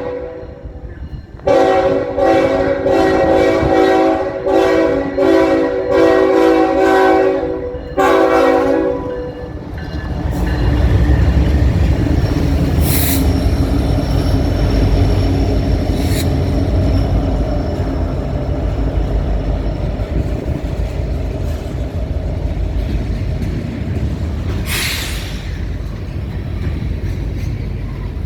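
Diesel freight locomotive's air horn sounding a chord in a rapid series of short blasts, then a longer blast ending about nine seconds in. The locomotives then rumble past and the train rolls by, with a few brief high squeals.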